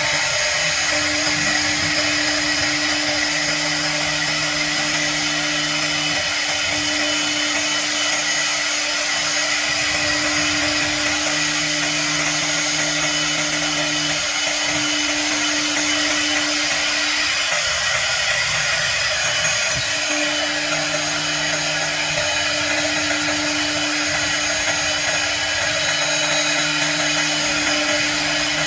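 CNC router spindle running and cutting acrylic sheet: a steady high hiss with a constant whine. A lower hum comes and goes every few seconds and drops out for a few seconds in the middle.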